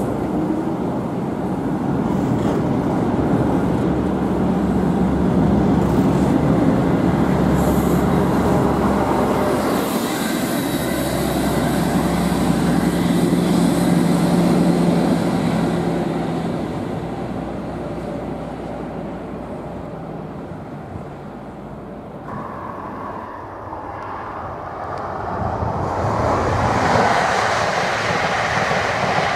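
Intercity 125 HST power cars with Paxman VP185 diesel engines: a steady engine note over a rumble as a train runs through the station, loudest twice and then fading. Near the end another HST comes past at speed, its wheel and rail noise rising.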